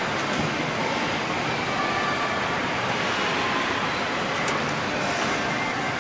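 Steady, dense din of a busy indoor amusement park: ride and crowd noise blended into one continuous wash, with a few faint held tones through it.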